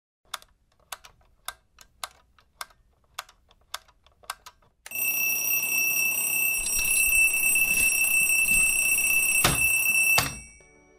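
A clock ticking about twice a second, then an alarm clock ringing with a steady high tone from about five seconds in. There is a sharp click shortly before the ringing cuts off near the end.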